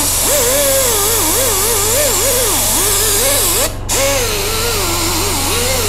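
Loud steady hiss of compressed air from a workshop air tool, cut off for a moment about four seconds in, over the steady hum of a running air compressor.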